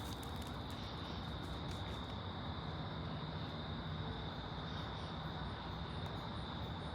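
Steady outdoor background noise: a low, even rumble with a thin, steady high-pitched whine above it, unchanging throughout.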